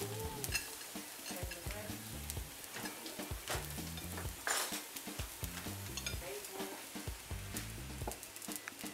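Bean burgers frying in oil in a pan, a steady low sizzle, with a few sharp clicks and scrapes of a knife spreading margarine on a bun on a plate.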